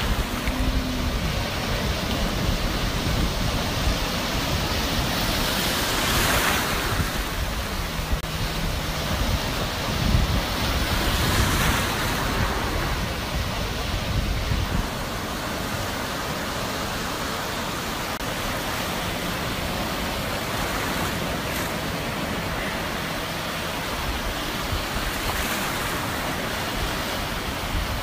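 Sea waves breaking and washing onto the shore, swelling louder now and then, with wind buffeting the microphone.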